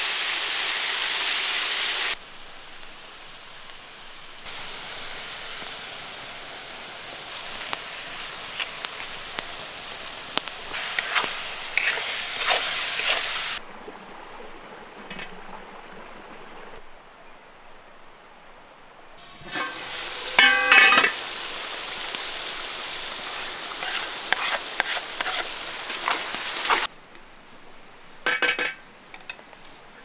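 Chicken fillet pieces sizzling as they fry in a kazan over a wood fire, heard in several cut-together takes, with a utensil scraping and clinking against the metal pot. About twenty seconds in comes a burst of ringing metal clanks, the loudest sound here, from the pot or its lid being struck.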